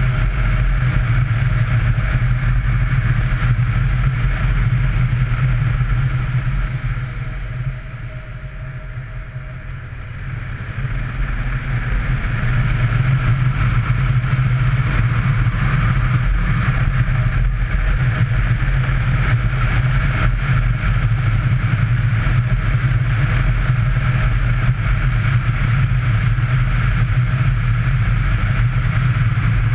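Yamaha Ténéré motorcycle running along the road, engine and road noise steady. It quietens for a few seconds about a quarter of the way in, then builds back up.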